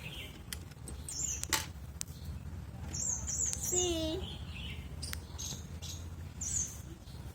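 Small electric motor of a toy mini washing machine running with a steady low hum. Birds chirp in short high bursts several times over it, and a brief child's vocal sound rises about four seconds in.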